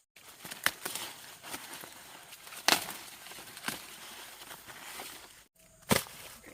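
Corn plants rustling, with four sharp snaps spread through it, as ears of corn are broken off the stalks.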